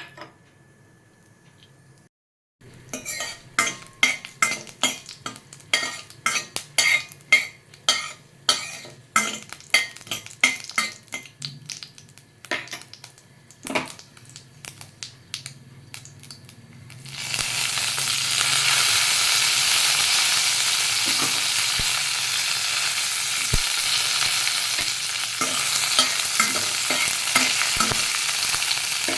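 Tempering spices crackling and popping one after another in hot cooking oil in a kadai. About seventeen seconds in, this gives way to a loud, steady sizzle.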